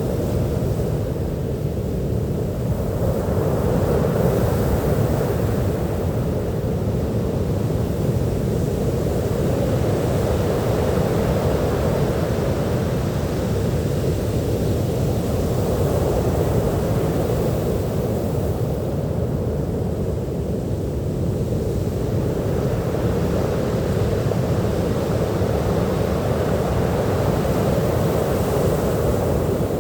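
Ocean surf breaking and washing onto a beach: a continuous rush of water that swells and eases slowly over several seconds, with a deep low rumble underneath.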